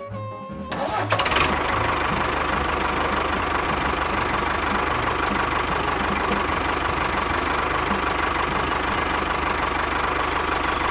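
A small engine starts running about a second in and keeps running steadily with rapid, even firing pulses and a steady whine.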